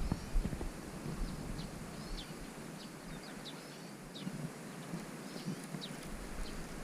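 Small birds chirping and singing in short, high, quick notes repeated many times, over a faint outdoor background hiss.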